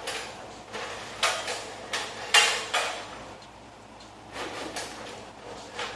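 20-foot extension ladder clanking and rattling as it is handled and repositioned: a run of sharp metal knocks and rattles, the loudest about two and a half seconds in, with a pause before a few more near the end.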